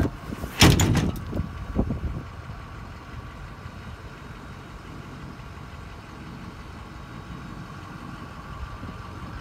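Metal tailgate of a Ford F-350 pickup dropping open, with one loud clank a little over half a second in and a few lighter knocks. After that comes a steady low background hum.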